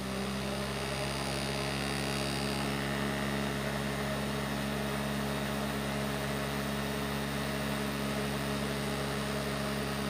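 Small electric fan motor of a homemade cardboard air cooler running at steady speed, an even hum with a light airy hiss.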